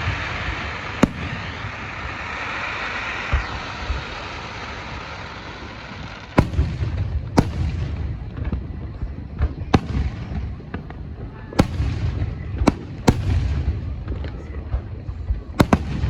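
Aerial fireworks bursting: a series of sharp bangs, irregularly spaced and some less than a second apart, over a continuous low rumble, with a hiss in the first few seconds.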